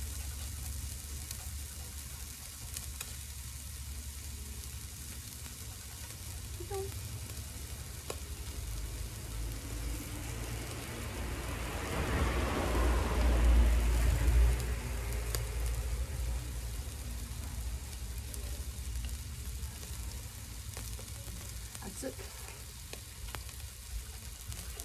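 Slices of beef sizzling on a small tabletop grill, a steady sizzle that swells louder for a couple of seconds around the middle, with a low hum underneath.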